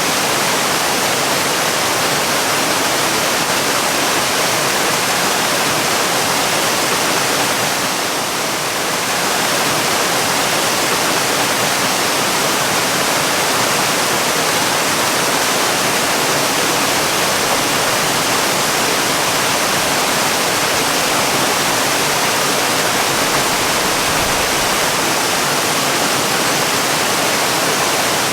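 Waterfall: falling water rushing steadily as an even, full hiss.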